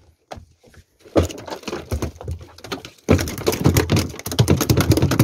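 A freshly caught dorado (mahi-mahi) thrashing on the floor of a small boat, its body and tail beating in a rapid drumming of slaps and knocks. The drumming starts about a second in and grows louder and faster about three seconds in.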